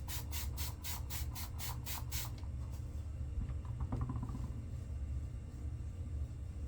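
Hands rubbing water over a freshly shaved face: about nine quick rasping strokes in the first two seconds, then they stop. A steady low hum runs underneath.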